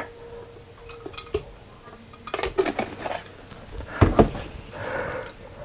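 Kitchenware clinks and knocks against a slow cooker's ceramic crock as pasta sauce is added from a plastic jar, with one louder knock about four seconds in.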